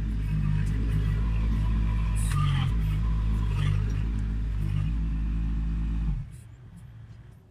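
An engine running steadily at idle, then cutting off about six seconds in.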